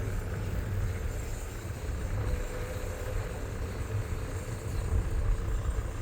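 Car rolling slowly with a low rumble and a faint thin rubbing tone from the wheel: a rusted brake disc dust shield scraping the disc, heard only while moving.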